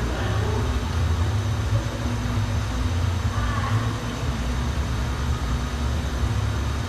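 Steady low rumble in the background, with faint distant voices about three seconds in.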